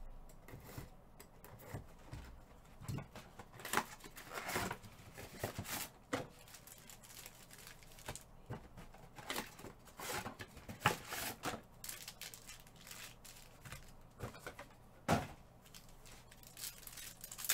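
Irregular small handling noises: scattered clicks and knocks with brief rustling and crinkling.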